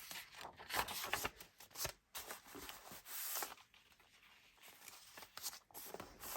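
Paper rustling and crinkling as the pages and tucked-in papers of a handmade junk journal are handled and turned, in irregular bursts.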